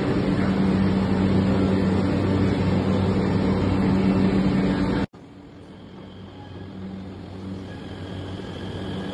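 Steady station-platform din with a low electric drone beside a standing Delhi–Meerut RRTS electric train. About five seconds in it cuts off abruptly to a much quieter hum that slowly grows louder, with a faint high whine from the train coming in near the end.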